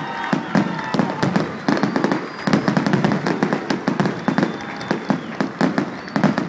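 Aerial fireworks shells bursting in quick succession: dense, overlapping bangs and crackles with no pause between them.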